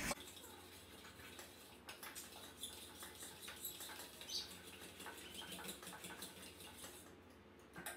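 Faint, irregular clicks and scrapes of a spoon stirring a crumbly graham-cracker crust mixture in a mixing bowl.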